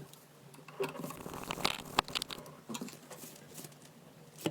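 Light handling noises from wood and metal parts being worked: scattered taps, clicks and crunchy scraping, with a sharp click about two seconds in and another near the end.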